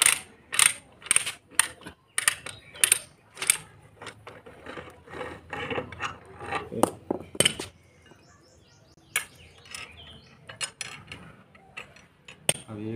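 Ratchet pipe-threading die stock being worked on a metal water pipe held in a pipe vise, its ratchet clicking about twice a second for the first few seconds, then in scattered clicks: the die is cutting threads into the pipe end.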